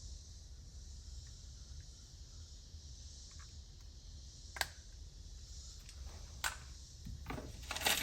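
Small hard plastic parts handled by hand: a sharp click about four and a half seconds in, another about two seconds later, then a quick run of clicks and rattles near the end, over a faint steady hiss.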